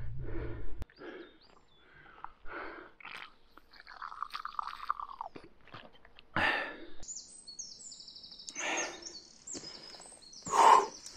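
Heavy, rapid panting of an exhausted hiker climbing a steep slope, breath after breath, with a drawn-out groan about four seconds in and two louder gasping breaths later on.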